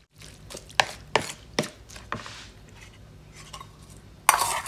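A wooden spoon tossing shredded banana blossom salad in a large plastic mixing bowl, knocking against the bowl a handful of times. Near the end, a louder scraping and clinking of a metal spoon against a small ceramic bowl as toppings are spooned out.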